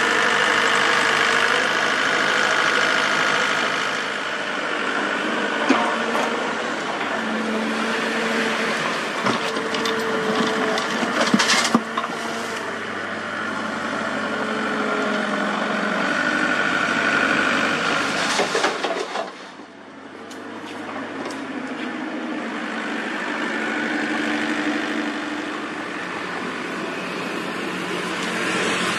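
Komatsu compact crawler excavator's diesel engine running and revving as the hydraulics work, its pitch stepping up and down. A few sharp clatters of rubble and rock striking the steel bed of a dump truck come through, the loudest ones about eleven to twelve seconds in.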